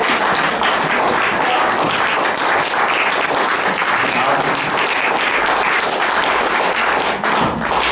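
An audience applauding: dense, steady clapping that dies away at the very end.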